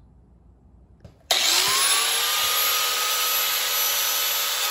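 Electric angle grinder switched on about a second in, spinning up with a rising whine, then grinding steadily into the head of a steel rivet that holds the rear leaf-spring front hanger to the truck frame.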